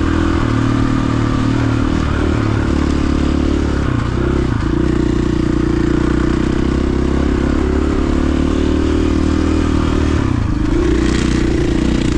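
KTM 500 EXC dirt bike's single-cylinder four-stroke engine running under steady throttle while riding a dirt trail, with brief dips in engine pitch about two, four and ten seconds in as the throttle eases off.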